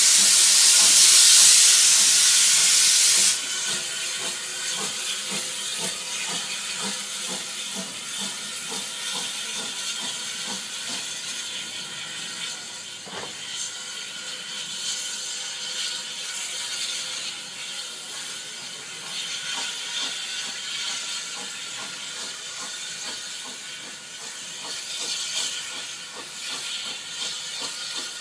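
A 1919 Hawthorn Leslie industrial steam locomotive pulling away. A loud hiss of steam cuts off suddenly about three seconds in, then the locomotive's working sound goes on more quietly and slowly fades as it draws away, with a single knock about halfway through.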